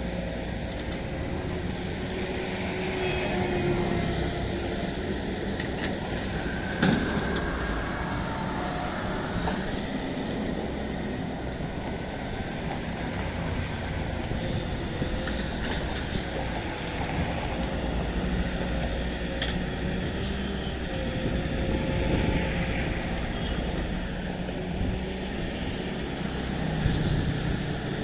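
JCB 3DX backhoe loader at work, its diesel engine running steadily, with one sharp knock about seven seconds in.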